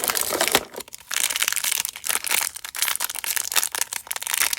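Toy packaging crinkling and crackling as it is handled and torn open, in rapid irregular crackles with a brief pause about a second in.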